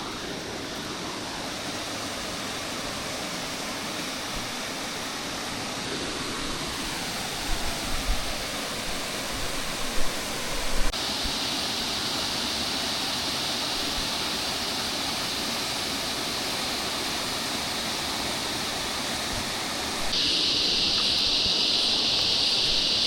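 Steady rush of running water, a waterfall or creek. A few low bumps come about a third of the way in, and the rush steps up louder about halfway through and again near the end.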